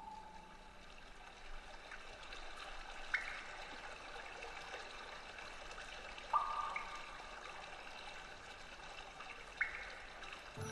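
Quiet passage of the dance's score: a steady flowing-water sound, like a stream, with a few sparse bell-like notes struck and left ringing.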